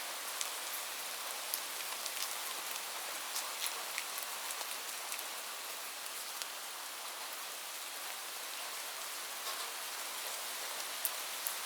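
Steady rain: an even hiss with scattered sharp ticks of individual drops striking close by.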